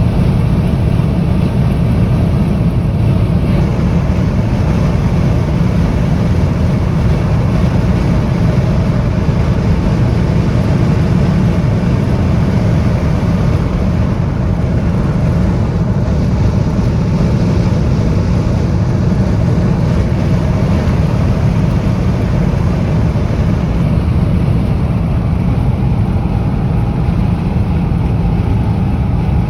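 High wind buffeting the microphone: a loud, steady, deep rumble with no letup.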